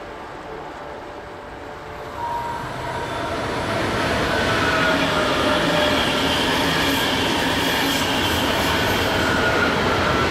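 Electric passenger train approaching over curved track and points, growing steadily louder from about two seconds in, with thin, high wheel squeals sounding over the rumble of the wheels.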